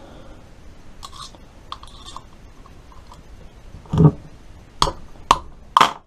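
Hammer striking a punch held against a motorcycle's electric fuel pump to knock its casing apart: four sharp metallic strikes in the last two seconds, the first the loudest. Before them, faint small clicks of parts being handled.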